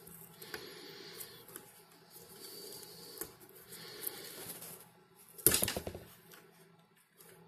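Red PVC electrical tape being unrolled and wrapped around soldered wire joints, with quiet rustling of the tape and wires. About five and a half seconds in there is a short, loud crackle of tape pulled off the roll.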